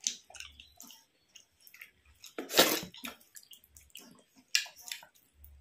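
Close-up eating sounds: wet clicks and smacks of chewing a rice-and-curry meal, with a louder wet burst about two and a half seconds in and a shorter one near five seconds.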